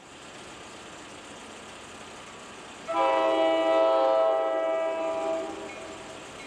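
Diesel locomotive horn, the MBTA F40PHM leading the rail extra, sounding one long multi-note blast that starts about 3 seconds in and fades out after about two and a half seconds, over a steady rumble of the approaching train.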